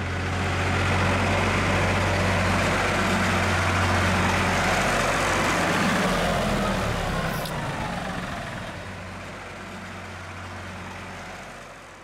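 Steyr tractor's diesel engine running as the tractor drives past, with a steady low hum. It is loud for the first half and then fades away as the tractor moves off.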